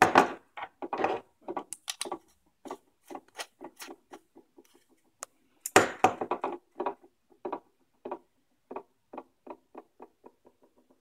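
Aluminium flashlights clicking and knocking against a tabletop as they are handled and set down in a row, with the loudest knocks at the start and about six seconds in. Near the end a run of light ticks comes faster and fainter.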